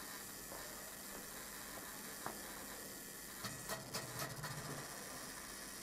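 Faint steady hiss, with a short run of small clicks and a brief low hum about three and a half seconds in.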